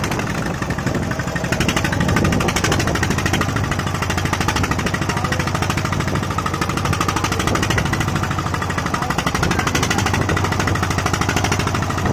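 Small wooden fishing boat's engine running steadily with a rapid, even chugging beat.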